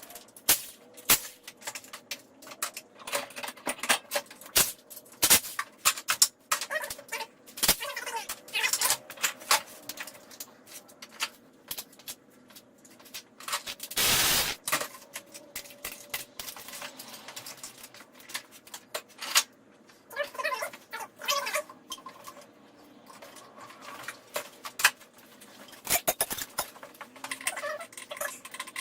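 Hand tools and metal engine-bay parts clicking, clinking and knocking irregularly as components are unbolted and taken off, with a brief rushing noise about halfway through.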